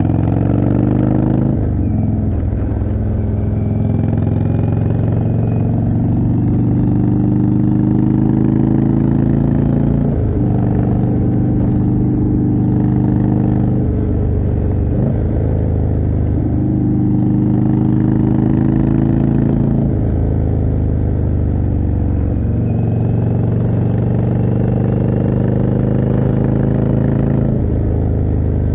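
Indian Chieftain's 1811 cc V-twin running under way through a Jekill & Hyde exhaust. The engine note dips sharply and climbs back again several times, about every five seconds.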